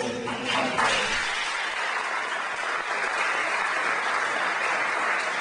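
An audience applauding steadily, the clapping swelling in about a second in.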